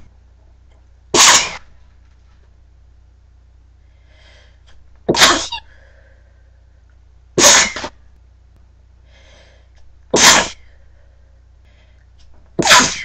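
A person sneezing over and over, five loud sneezes two to four seconds apart, with fainter sounds between them.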